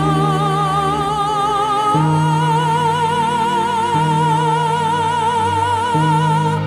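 Slow, calm background music: a long, wavering melody note held over sustained low notes that change about every two seconds.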